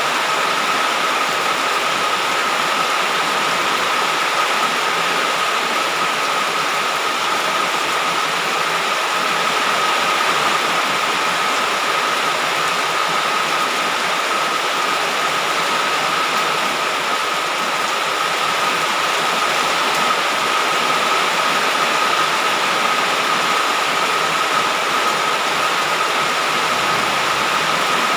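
Heavy rain falling in a steady downpour, an even hiss with no letup, and a steady high tone running through it.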